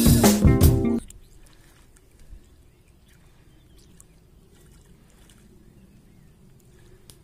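Background music with a beat that cuts off abruptly about a second in, leaving only faint, even outdoor background noise with a few faint clicks.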